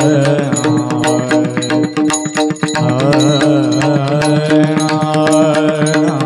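Marathi Varkari kirtan music: a voice singing a devotional melody over a steady drone, with quick, continuous strokes of small brass hand cymbals (taal) and pakhawaj drumming.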